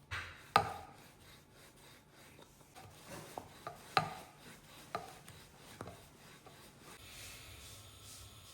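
About seven sharp knocks and taps at uneven intervals, the loudest about half a second in, then a faint hiss near the end.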